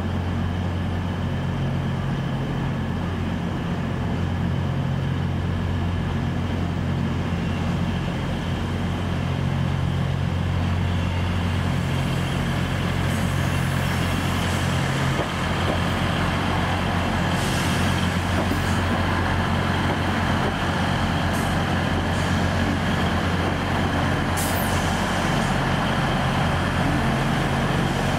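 Northern Class 158 diesel multiple unit arriving, its underfloor diesel engines running with a steady low hum. In the second half come several brief, sharp, high-pitched hisses.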